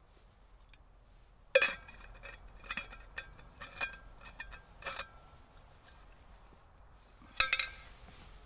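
Metal camping cookware clinking as it is handled: a sharp ringing clink about one and a half seconds in, a run of lighter clinks, and another loud double clink near the end.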